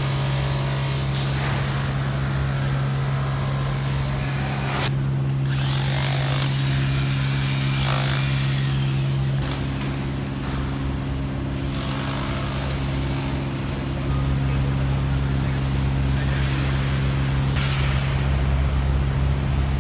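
Underground construction-site noise: a steady low machinery hum with the hammering of a handheld electric demolition hammer chipping concrete.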